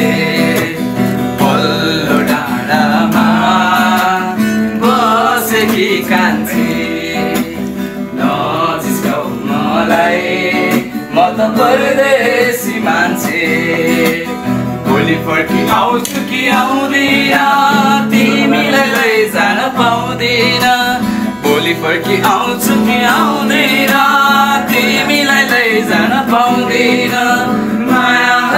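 Acoustic guitar played with a man's voice singing along to it.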